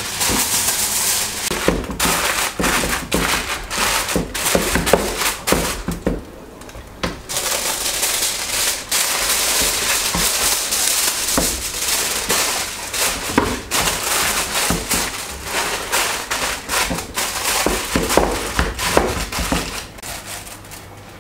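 Aluminium foil crinkling and crackling as it is handled and pressed down over the rim of a pan, a dense run of sharp crackles with a brief lull about six seconds in.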